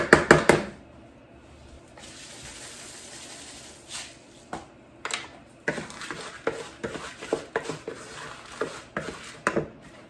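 Scoop and spatula knocking and scraping in a mixing bowl as birdseed is stirred into a thick peanut butter and lard suet mix, with a quick run of sharp knocks at the start and a soft hiss for a couple of seconds in the middle.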